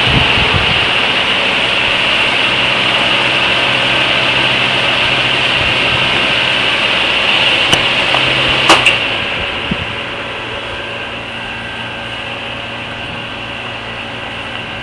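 Steady mechanical drone with a hiss and a low hum. A couple of sharp clicks come just past halfway, and then the drone drops and runs on more quietly.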